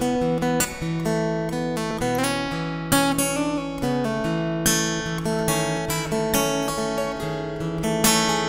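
Acoustic guitar played fingerstyle: a picked melody over a held bass line, the notes ringing into each other in a steady flow.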